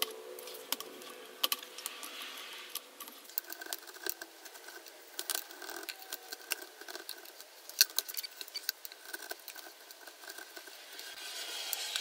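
Wood chisel paring a notch in a small wooden block by hand: a fairly quiet run of irregular crisp clicks and crackles as fibres and chips break away under the edge.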